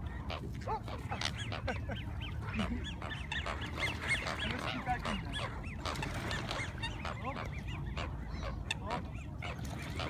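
A crowd of waterbirds, mostly ducks and geese with gulls and coots among them, calling over one another in a steady chatter of short overlapping honks and quacks as they jostle for food being tossed to them.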